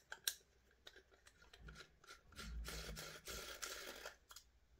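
Quiet handling of metal gun parts: a couple of light clicks near the start, then soft scraping and rubbing from about halfway through as a small driver is worked into the front of an airsoft gas-blowback rifle's upper receiver to back out the hop adjuster's grub screw.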